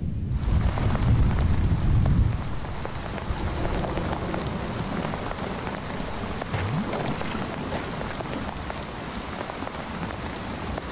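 A low rumble of thunder dies away about two seconds in as heavy rain sets in, falling steadily on leaves.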